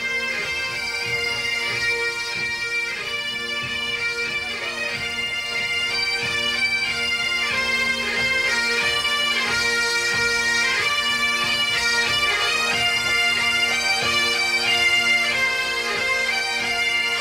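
Massed pipe bands playing Great Highland bagpipes together: steady drones under the chanters' stepping melody.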